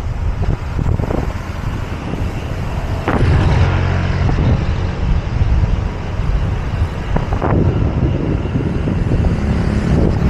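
Wind rumbling over the microphone of a camera on a moving bicycle, mixed with road traffic, with a couple of vehicles passing more loudly about three and seven seconds in.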